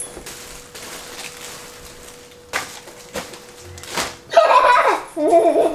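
Crinkled kraft packing paper and plastic wrapping rustling as items are pulled out of an IKEA cardboard carton, with a few sharp knocks. About four seconds in, a loud whining voice with a wavering pitch cuts in and is the loudest sound.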